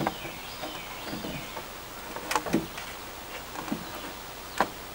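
A few sharp wooden knocks and clunks as a pine board is handled and set against the treehouse framing, the loudest near the end.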